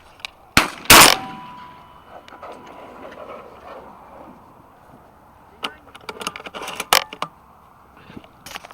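Shotgun fire: a sharp crack, then a louder blast about a second in that dies away over a second or so. A rapid cluster of sharp clicks and knocks follows around six to seven seconds in, with one louder crack among them.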